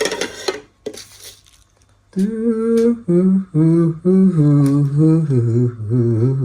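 A man humming a tune in a low voice: a run of held notes with short breaks, starting about two seconds in.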